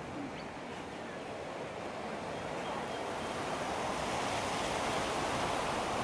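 Steady rushing outdoor noise, like wind, with no distinct bird calls, slowly growing a little louder.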